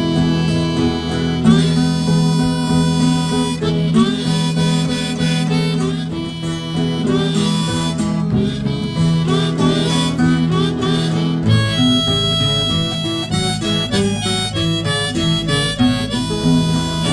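Blues harmonica playing an instrumental break over acoustic guitar accompaniment, with a steady low note underneath.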